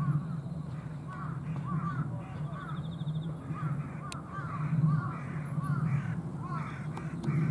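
Outdoor birds calling: short arched calls repeating about twice a second, over a steady low rumble.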